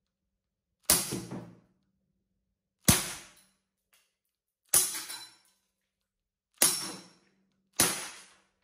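KJ Works Ruger MK1 green-gas airsoft pistol firing five single shots at irregular intervals of one to two seconds, each a sharp crack followed by a short ringing clatter as a BB strikes the metal target box.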